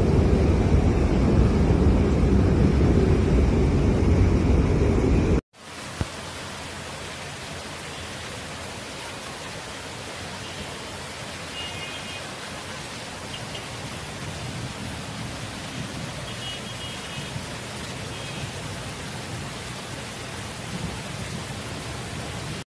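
Heavy storm rain. For about the first five seconds there is a loud, deep, steady rumble; after an abrupt cut it becomes a quieter, even hiss of a downpour.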